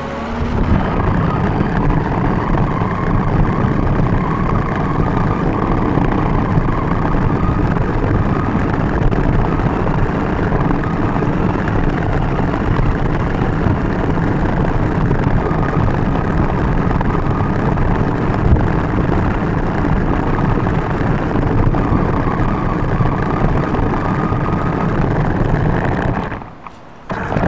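RC car driving on asphalt, heard from on board: steady rumble of tyres on the rough road with a faint motor whine. It cuts out briefly near the end, then starts again.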